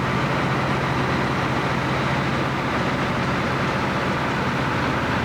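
Light aircraft's piston engine running steadily, heard from inside the cabin as an even drone with a low hum and a rushing noise over it.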